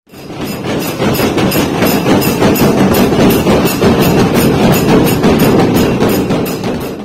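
A group of drummers beating stick-played side drums and a large bass drum together in a fast, steady rhythm, loud and dense, cutting off suddenly at the end.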